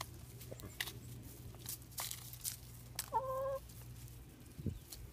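Rhode Island Red and Barred Rock hens pecking at a hanging cabbage: many sharp taps of beaks on the leaves, with one drawn-out hen call about three seconds in. A low steady hum lies underneath and fades out near the end.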